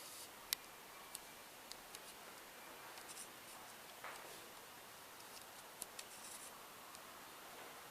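Quiet room tone with a few faint, sharp clicks and light rubbing, the loudest click about half a second in and two more near the six-second mark.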